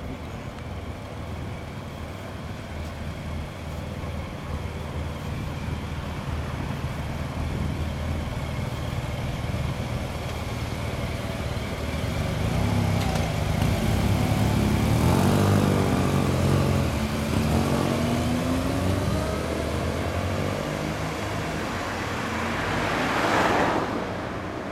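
Several motorcycle engines idling, then revving as the bikes pull away, in rising notes past the middle, over car traffic. A vehicle passes close near the end, the loudest moment.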